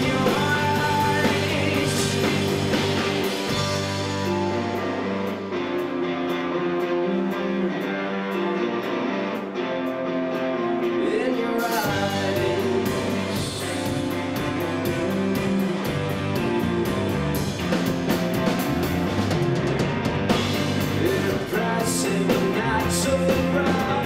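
Rock band playing a song: electric guitars, bass and drum kit with a singing voice. About four seconds in the band drops back to a sparser, quieter passage, and it comes back in full around twelve seconds in.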